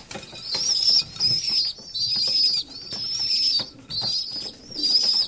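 Newly weaned young pigeons, about three weeks old, giving repeated high-pitched wavering squeaks, about six calls of half a second or so each, with some wing flapping and light pecking clicks.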